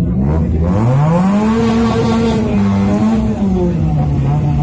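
A vehicle engine being revved. Its pitch climbs over about a second and a half and holds high, eases down near the end, then starts climbing again.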